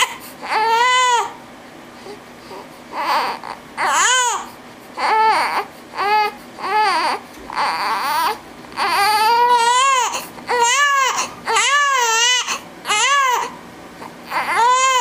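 Newborn baby crying: a dozen or so short wails, each rising and falling in pitch, with brief pauses between them.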